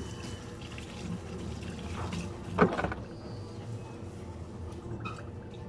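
A steady low hum, with one sharp knock or clatter about two and a half seconds in.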